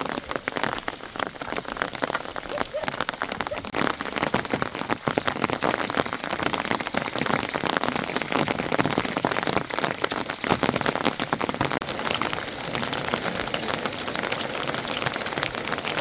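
Rain mixed with hailstones falling onto a hard surface: a steady hiss thick with many sharp individual hits.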